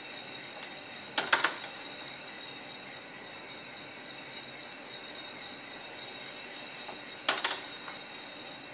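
Fuji Royal Discovery coffee roaster running mid-roast with a steady hiss, and two short bursts of metallic clicking and clinking as its sampling trier is handled, once about a second in and again near the end as the trier goes back into the drum.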